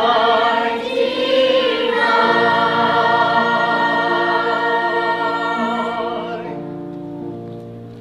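Mixed youth choir singing, with a warbling vibrato for the first couple of seconds, then a long held final chord. The upper voices stop about six seconds in and the last low notes fade out near the end: the close of a song.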